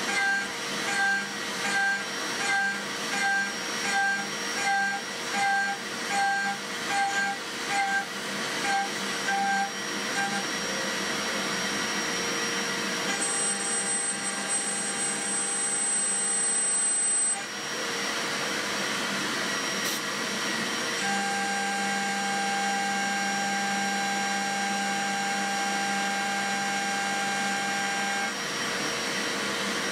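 End mill on a home-built CNC milling machine cutting a pocket in steel: steady spindle and cutting noise. For the first ten seconds it swells and fades about one and a half times a second, then it runs steady, with a high cutting tone that comes and goes and a single sharp click partway through.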